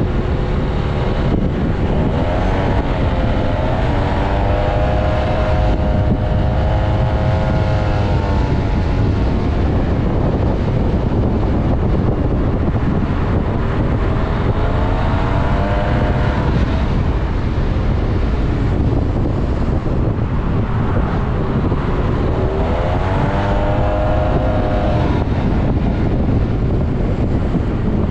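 Yamaha MT-09 three-cylinder engine under way, buried in heavy wind rush on the helmet or bike microphone. Its note climbs and falls three times as the rider accelerates, about two seconds in, around fourteen seconds, and again near twenty-two seconds.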